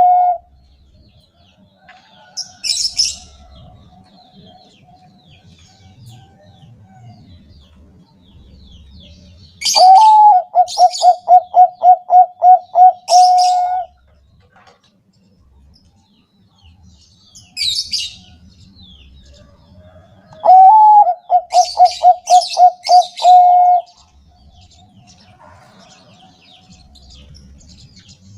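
Zebra dove (Thai-bred 'bangkok' perkutut) singing: twice a rapid run of about a dozen staccato coos, three to four a second, each run lasting about four seconds, with a softer drawn-out coo between them. Short high chirps from other small birds come in between and over the song.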